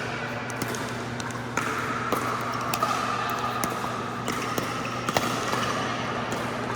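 Pickleball play on an indoor court: irregular sharp pops of paddles striking the plastic ball and the ball bouncing, over a steady low hum.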